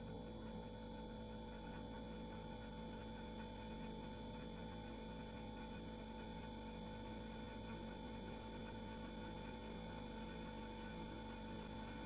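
Refrigerator running with a steady, faint hum made of a few constant tones over a soft hiss.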